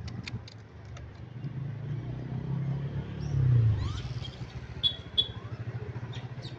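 A motor vehicle's engine running steadily as a low hum, swelling to its loudest about three and a half seconds in. A few sharp clicks sound in the first second, and two short high chirps come about five seconds in.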